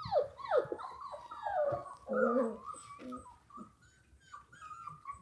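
Five-week-old German Shorthaired Pointer puppy whining: a quick run of high, falling whimpers in the first three seconds, then fainter, shorter whines.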